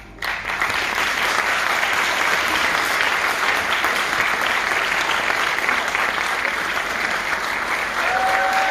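Audience applauding, starting abruptly and holding steady; near the end a few voices cheer over the clapping.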